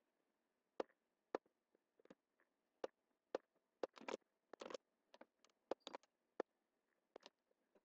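Computer mouse buttons clicking irregularly, roughly two clicks a second, with a couple of quick rattling runs of clicks about four seconds in.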